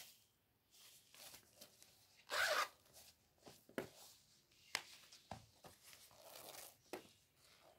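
Beaded fabric clutch bags being handled: rustling and scraping of cloth and beads with a few sharp clicks. The loudest is a short scraping rustle about two and a half seconds in.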